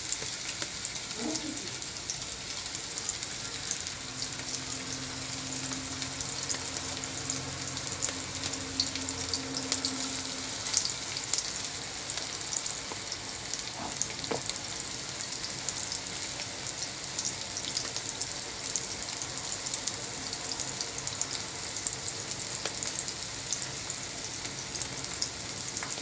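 Köfte ground-meat patties frying in hot oil in a nonstick pan: a steady sizzle with dense fine crackling spatter. A faint low hum sits under it for several seconds in the first half.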